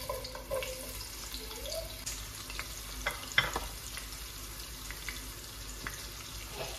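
Chopped onion sizzling and crackling in hot vegetable oil in a pot on a gas hob, as the onions go in to start frying. A few sharp clinks come about three seconds in.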